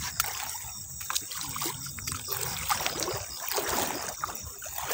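Feet wading through shallow river water, splashing and trickling with each step, with a few sharp clicks.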